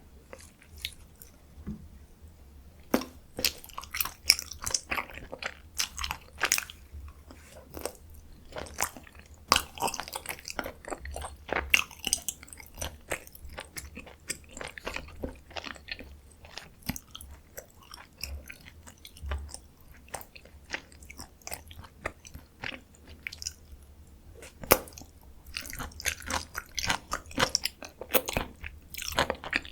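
Close-miked chewing of dakgalbi, spicy stir-fried chicken: many quick, irregular wet clicks and smacks from the mouth. It starts about three seconds in and comes in thicker stretches.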